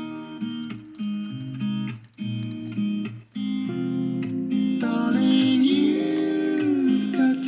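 Background song led by acoustic guitar.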